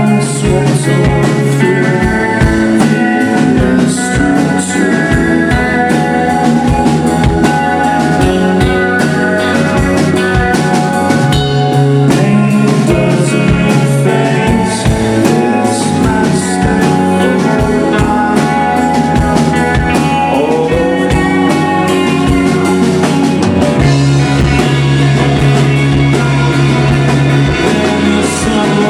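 Loud live indie rock band playing: electric guitars, bass and drums with cymbal crashes, recorded on a camcorder.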